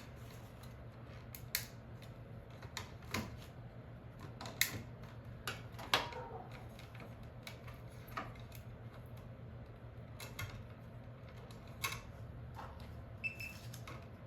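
Scattered sharp clicks and taps of hand tools and metal parts being handled while an electrical junction box is opened, about a dozen separate ticks spread out, over a steady low hum.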